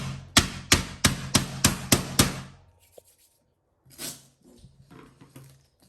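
Sticky tape pulled off the roll in a quick run of about eight short, sharp rasping tugs, then one more tug near four seconds in.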